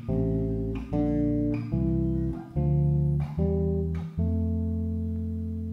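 Electric bass playing root-and-tenth double stops, the root with its third an octave above: a string of two-note chords plucked a little under a second apart, the last one left ringing and slowly fading.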